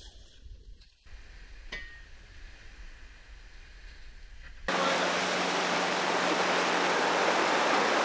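A quiet low rumble, then a few seconds in a sudden switch to a loud, steady rushing hiss of wind and water with a low steady hum beneath it, heard on a moving boat.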